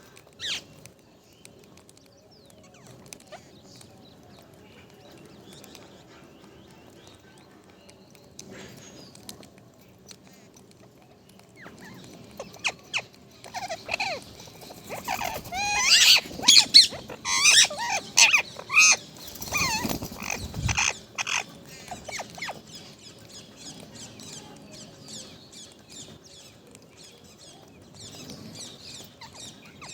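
Parrot calling, with a dense run of loud, pitch-bending calls in the middle and fainter calls before and after.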